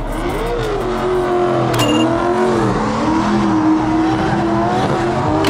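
Drift car engine at high revs, its pitch wavering up and down as the throttle is worked, with a sharp click about two seconds in.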